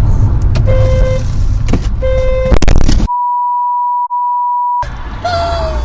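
Car road noise with two short car horn honks, then a loud crash of impacts. The audio then cuts to a steady electronic beep tone lasting nearly two seconds with nothing else behind it, before road noise returns near the end.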